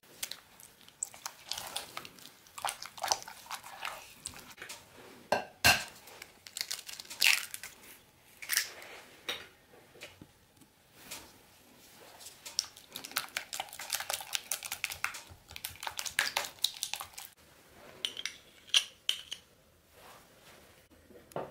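Silicone spatula mixing eggs into creamed butter and sugar in a glass bowl: irregular scraping and stirring, with scattered sharp knocks and clinks against the glass.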